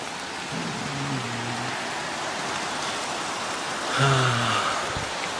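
Steady rush of falling water from a spring-fed waterfall, an even hiss with no break.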